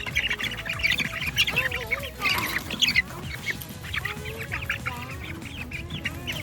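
A group of baby chicks peeping, a dense stream of short high-pitched chirps overlapping one another, with a few lower gliding calls among them.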